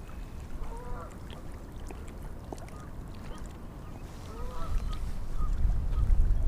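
Geese honking: a few short calls about a second in and again a little past the middle. Wind buffets the microphone underneath and gets stronger toward the end.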